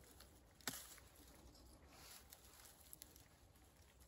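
A single sharp snap about a second in, a royal fern (zenmai) fiddlehead stalk being broken off by hand at its base, followed by a few faint ticks against near silence.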